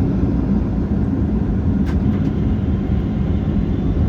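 Steady low rumble inside the cabin of a Boeing 737-800 moving on the ground before takeoff, with a few faint clicks about two seconds in.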